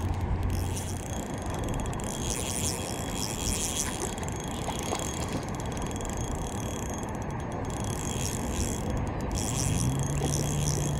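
Fishing reel being cranked as a hooked trout is brought in to the net, its gears whirring and clicking in a steady run.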